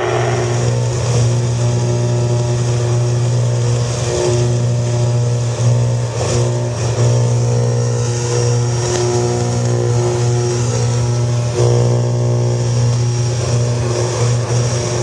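A shortwave radio signal received on a home-built crystal radio set and played over loudspeakers: a steady, low buzzing drone with a stack of overtones over hiss, briefly dipping a few times. The uploader takes it for a HAARP transmission.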